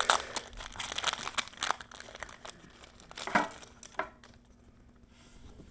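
Yu-Gi-Oh booster pack's foil wrapper crinkling and being torn open: dense crackling for the first couple of seconds, a louder crackle about three and a half seconds in, then it goes quiet.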